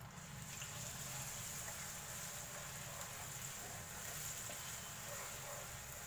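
Chopped onions sizzling in hot oil in a non-stick wok as they start to fry: a low, steady hiss.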